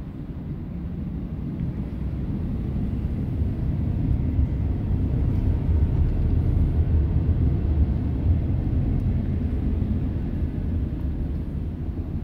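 2009 Harley-Davidson Dyna Fat Bob's Twin Cam 96 V-twin idling through Vance & Hines Long Shots exhaust pipes. It gives a steady, low, loping rumble with no revving, growing louder toward the middle and easing off near the end.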